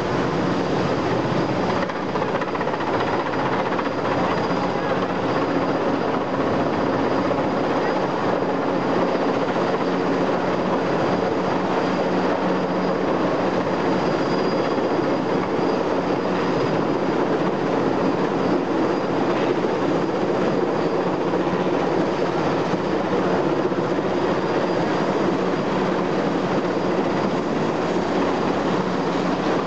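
Sikorsky S-58 helicopter hovering overhead with a load on a long cable, its rotor and engine running loud and steady.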